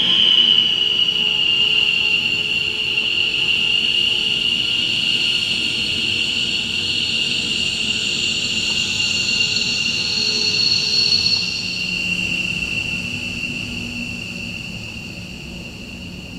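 F-15E Strike Eagle jet engines whining at taxi power: a loud, high turbine whine that dips slightly in pitch in the first second, then holds steady and fades over the last few seconds.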